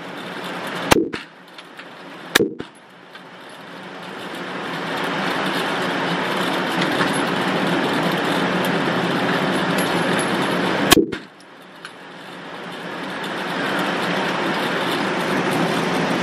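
Three shots from a Glock pistol on an indoor range. Two come about a second and a half apart near the start and the third about eleven seconds in. Between them is a steady background rush that swells back up after each shot.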